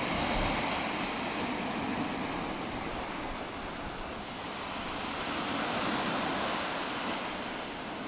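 Small waves breaking and washing up on a sandy beach, a steady rush that swells about half a second in and again around six seconds.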